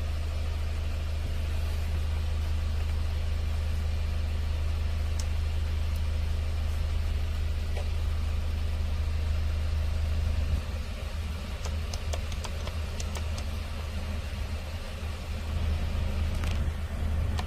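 Hyundai H1 Starex's 2.5-litre turbo-diesel engine idling steadily, heard from inside the cab as a low hum that eases slightly about ten seconds in. A few light clicks come soon after.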